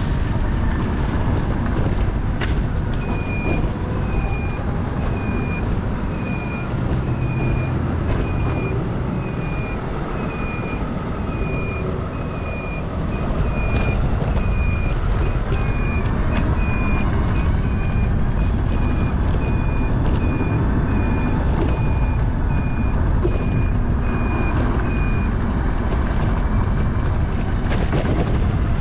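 A trike on the move: steady low engine and road rumble. Over it, a short, high electronic beep repeats about every three-quarters of a second, stopping a few seconds before the end.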